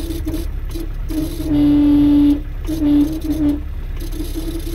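Car horn sounded in a series of short toots and one longer steady blast about a second and a half in, each note one flat, unchanging pitch, apparently worked from a button on top of the gear-shift knob. A low engine rumble runs underneath.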